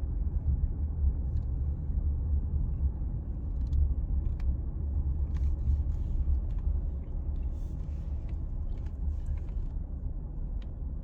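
Wind buffeting the microphone: a low, uneven rumble, with a few faint clicks.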